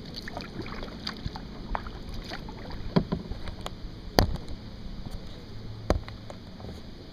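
Kayak being paddled: small drips and splashes of water from the paddle, with three sharper knocks, the loudest about four seconds in.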